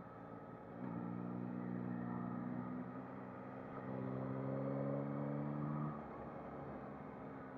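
Yamaha MT-09 SP's inline three-cylinder engine running under way. It gets louder about a second in, its note changes about four seconds in, and it drops back near six seconds.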